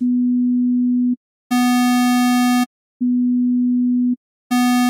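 Synthesized test tones alternating at the same low pitch and the same peak level: a pure sine wave, then a buzzy square wave, then the sine again, and the square again near the end. Each lasts about a second with short gaps between. The square wave sounds a lot louder, though both peak at exactly the same level.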